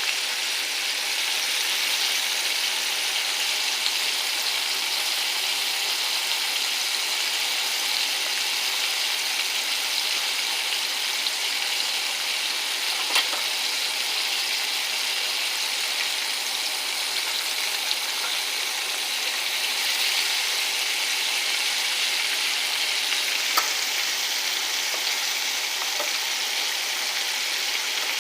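Flour-coated ribs frying in hot oil: a steady sizzle with two sharp pops, one about halfway through and one near the end.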